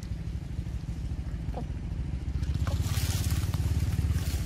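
A small engine running with a steady, pulsing low rumble that gets louder about two and a half seconds in, with a rustling hiss and a few faint clicks over it.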